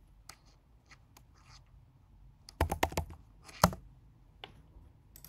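Scattered clicks and taps at a computer keyboard and mouse, with a quick run of clicks about halfway through and a single sharp click just after it.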